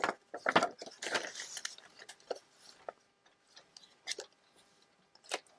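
Paper being handled: irregular rustling and crinkling of book-page pieces, with a few sharp light taps or clicks.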